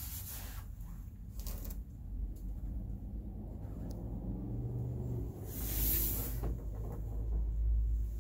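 Handling noise from a handheld camera being moved about: a low rumble with a few faint knocks, stronger from about halfway in, and a brief hiss about six seconds in.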